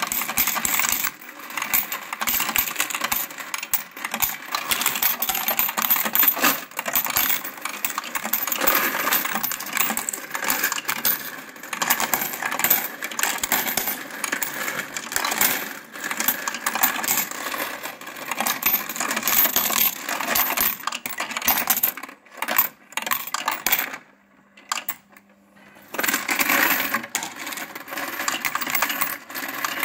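VEVOR electric Euro coin sorter and counter running, with a fast, dense clatter of coins being fed through the mechanism and dropping into the denomination trays. About three-quarters of the way through, the clatter stops for a couple of seconds, leaving a faint steady hum, then starts again.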